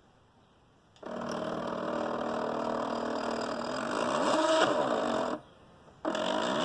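SteppIR antenna element stepper motor running under the controller's motor test: a steady whine with several tones that sweeps in pitch shortly before it stops about five seconds in, then starts again a moment later. It shows the motor and its controller driver working.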